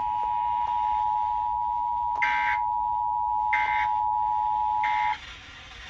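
Emergency Alert System data tones: three short warbling bursts of the end-of-message code, marking the close of the alert. They play over the steady two-tone EAS attention signal, which cuts off suddenly about five seconds in.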